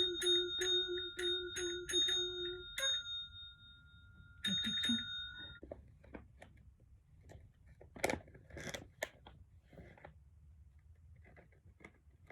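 A small bell struck rapidly, about three dings a second, for the first few seconds. It rings twice more, close together, about four and a half seconds in. Near the end there is a short burst of rustling noise.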